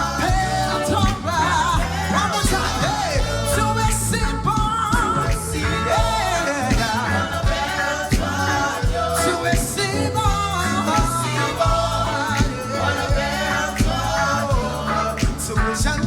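Live gospel praise-and-worship music: singers over a band with bass and drums, playing steadily.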